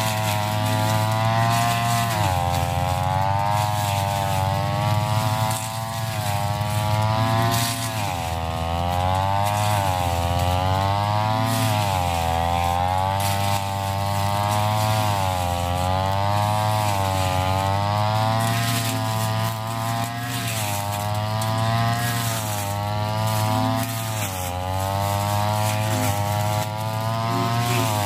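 Backpack brush cutter's engine running hard while cutting tall, thick grass, its pitch dipping and recovering about every two seconds as the blade swings into the growth and out again.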